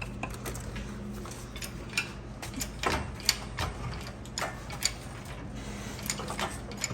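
Engine hoist being raised to lift the engine out: irregular ratcheting clicks and metal clanks, over a steady low hum.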